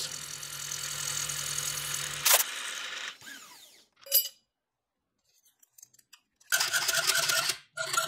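A milling machine runs steadily while an end mill cuts down a brass flat bar held in a vise. A click sounds a little after two seconds in, and the noise then fades away. After a short quiet, a hacksaw starts cutting brass in a bench vise, with rhythmic strokes from about six and a half seconds in.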